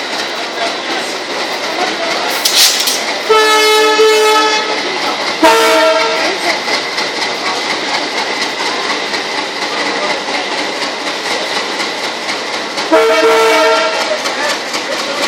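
Indian Railways passenger train rolling past a station platform with steady wheel and coach noise. Its locomotive horn sounds three times: two blasts close together a few seconds in and a third near the end. A brief hiss comes just before the first blast.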